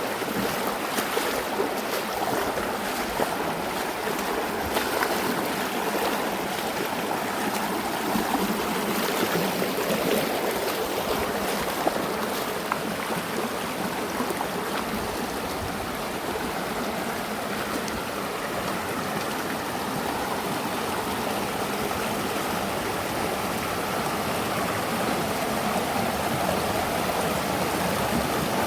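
Mountain river running over rocks, a steady rush of flowing water with small splashes and gurgles.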